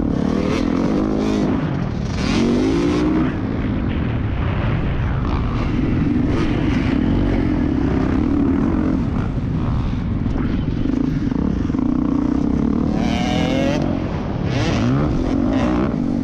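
2014 Yamaha YZ450F's four-stroke single-cylinder engine under racing load, heard close up from the bike. The revs climb sharply and drop back several times, around the start and again near the end, between steadier stretches at high revs.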